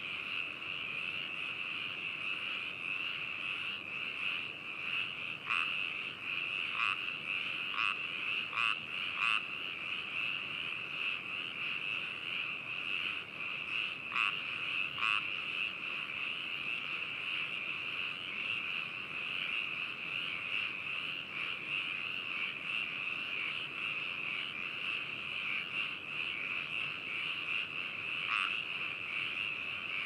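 A dense chorus of frogs calling steadily. A few nearer single calls stand out above it: a cluster from about five to nine seconds in, two more around fourteen to fifteen seconds, and one near the end.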